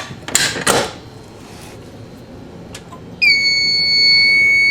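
Metal clicking and clacking as a fire alarm pull station is reset with a hex key, then about three seconds in a fire alarm system's electronic buzzer sounds one steady high-pitched tone for about two seconds.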